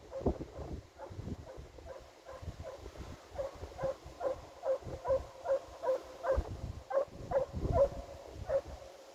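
Russian hound baying in a steady run of short yelps, about two or three a second, starting a few seconds in, with wind buffeting the microphone.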